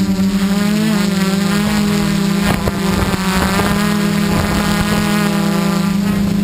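Xaircraft X650 quadcopter's electric motors and propellers running close to the mic with a steady hum. Higher tones waver up and down in pitch for a few seconds as the motor speeds shift.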